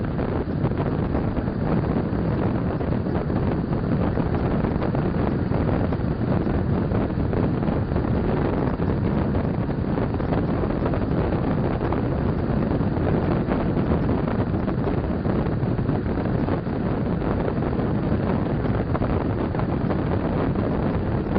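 Passenger train running at speed, heard from inside the carriage at the side window: a steady rush of wind and rolling wheel-on-rail noise with faint, frequent ticks and rattles.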